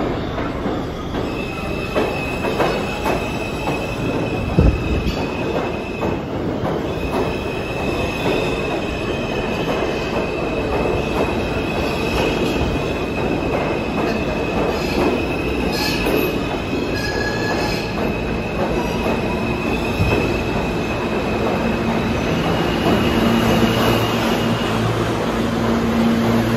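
New York City subway train in the station, its wheels squealing on the rails: a steady high squeal over the rumble of the train, breaking off briefly about six seconds in and dying away near the end.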